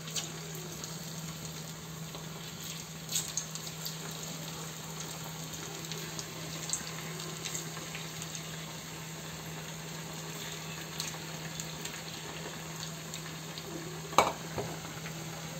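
Marinated chicken pieces deep-frying in hot oil in a kadai: a steady sizzle with scattered pops and crackles as the oil bubbles hard around them, over a steady low hum. A single sharp knock near the end.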